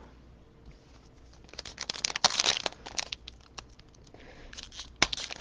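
Foil trading-card pack wrapper crinkling and tearing as it is opened by hand, in two spells of dense crackles, the first about a second and a half in and the second near the end.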